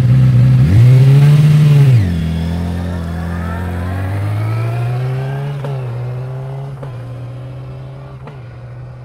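Yamaha YZF-R6's inline-four engine heard through its stock muffler with the exhaust valve closed. It idles, gives one quick rev about a second in, then pulls away, rising in pitch and shifting up three times as it fades into the distance.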